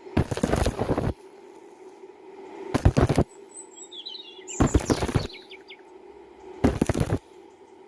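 Stick (SMAW) welding arc crackling in four short bursts about two seconds apart, the arc struck and broken again and again to build up weld across a wide gap. A steady hum runs underneath, and birds chirp between the bursts.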